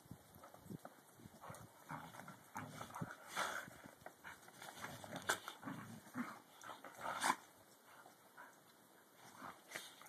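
Two Australian Shepherds play-fighting in snow: short dog vocalisations and scuffling in irregular bursts, busiest through the middle and quieter near the end.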